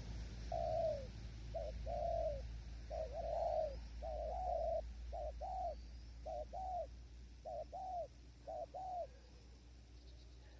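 Spotted dove cooing: a series of low, soft coos, most of them in pairs, that starts about half a second in and stops about a second before the end.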